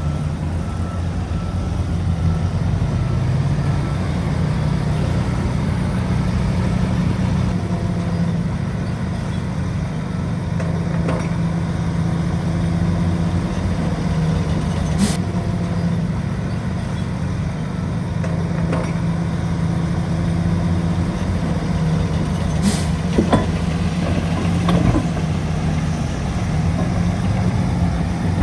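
Shantui DH17C3 bulldozer's diesel engine running steadily, with brief sharp high-pitched sounds twice, about halfway through and again near the end.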